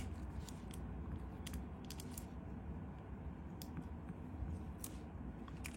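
Faint, scattered small clicks from a Zippo lighter being handled, over a low steady hum.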